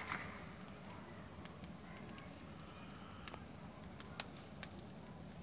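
Bonfire crackling faintly, with a few sharp, irregular pops and snaps.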